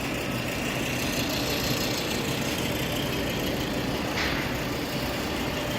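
Steady drone of powered-up industrial machinery, a continuous mechanical hum with faint steady tones. A brief hiss sounds about four seconds in.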